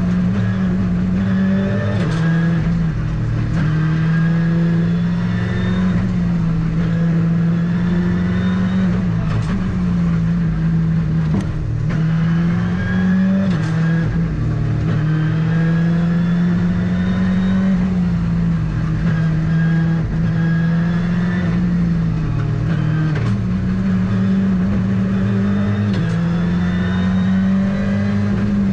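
Ford Fiesta R5 rally car's engine at full effort, heard from inside the cabin: the revs climb again and again and drop sharply at each gearshift. Short sharp cracks come now and then.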